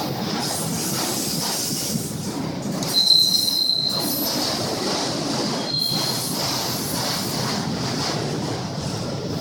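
Train passing with a steady rumble and rush of wheels on rails, with a brief high-pitched wheel squeal about three seconds in and a shorter one near six seconds.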